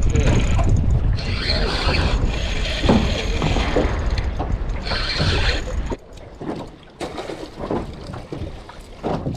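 Wind rumbling on the microphone as a spinning reel is wound in on a hooked queenfish, with two brief higher-pitched buzzes about a second and a half and five seconds in. The rumble drops away about six seconds in, leaving quieter clicks and handling sounds.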